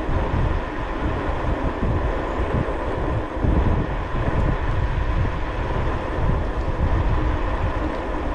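Wind rushing and buffeting over the microphone with tyre roar as an e-bike coasts fast down a long hill, a steady, gusting low rumble.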